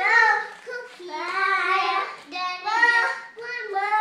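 A young child singing in a high voice, holding and sliding between notes in short phrases with brief breaks.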